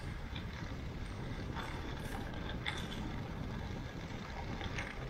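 Steady low rumble of wind buffeting the microphone, with a few faint brief clicks or scrapes in the middle and near the end.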